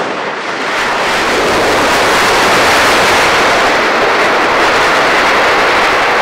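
Boeing 727's three Pratt & Whitney JT8D turbofans running in reverse thrust during the landing rollout: loud, rough jet noise that swells within the first second and then holds steady.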